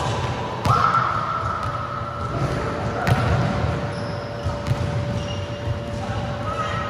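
Volleyball rally: the ball is struck by players' hands and arms several times, each hit a sharp smack that echoes in a large sports hall.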